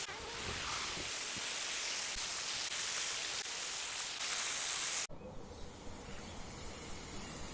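Rushing water of a river or waterfall: a loud, even hiss. It cuts off abruptly about five seconds in, giving way to quieter outdoor ambience with a steady high insect drone.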